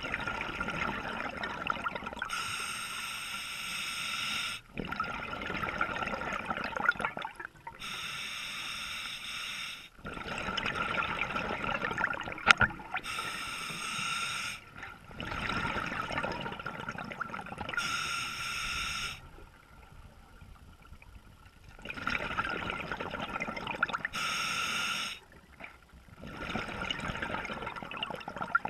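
A scuba diver breathing through an open-circuit regulator underwater: each breath a hiss drawn through the regulator, then a rush of exhaled bubbles, repeating about every five seconds with a short lull about two-thirds through.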